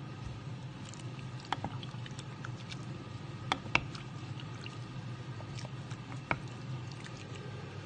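A wooden spoon stirring a simmering coconut-milk and pineapple chicken stew in a pan, with wet squishing and a few sharp knocks of the spoon against the pan, the loudest two close together in the middle. A steady low hum runs underneath.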